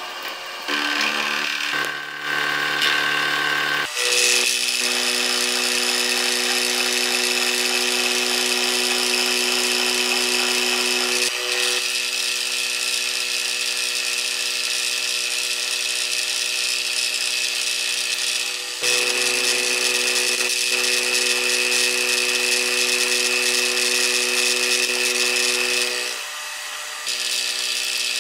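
Milling machine running a large two-flute end mill through a block of aluminum: a steady machining whine with several held tones over a hiss of cutting. The tone and strength shift abruptly several times as the cut changes.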